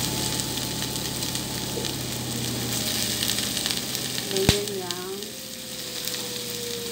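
Half-cooked broccoli florets, red onion and garlic sizzling in hot olive oil in a frying pan as the broccoli is added and stirred, with a steady frying hiss. A single sharp knock sounds about four and a half seconds in.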